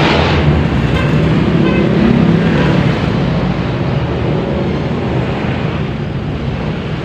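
A steady engine rumble with a low hum, slowly getting quieter toward the end.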